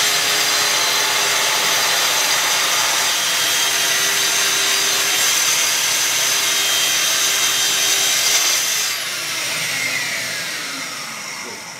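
Festool TS55 plunge-cut track saw running and cutting along its guide rail through the wooden bench base, trimming it level. About nine seconds in the saw is switched off, and its motor and blade wind down with a falling whine.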